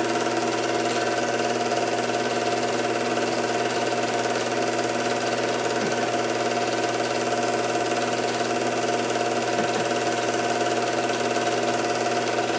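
Film projector running: a steady mechanical whir and fast clatter over a constant hum, unchanging throughout.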